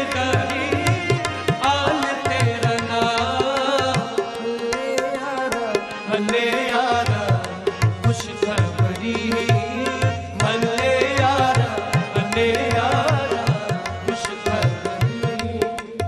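Sikh shabad kirtan: a man's voice singing a devotional melody to harmonium, with tabla keeping a steady beat.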